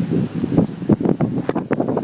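Wind buffeting the microphone, with irregular rumbling gusts and knocks.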